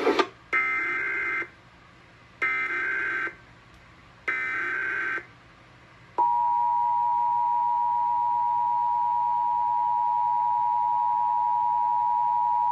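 Emergency Alert System broadcast header: three bursts of buzzing digital data tones, about a second each and a second apart, then the steady two-tone attention signal sounding from about six seconds in. It marks the start of a statewide Required Monthly Test.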